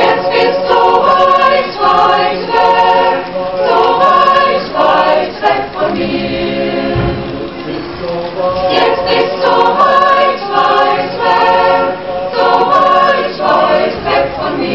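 Women's choir singing in parts, with a softer passage in the middle.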